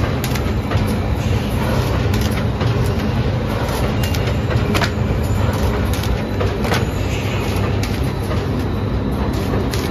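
Corrugated carton printer-slotter-die-cutter machine running: a steady low mechanical rumble and hum from its rollers, with a few sharp clacks at uneven intervals.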